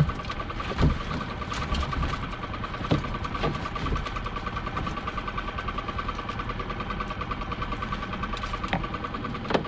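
A small fishing boat's engine idling with a steady, fast throb, and a few sharp knocks and clunks as a lobster pot is handled against the boat's side.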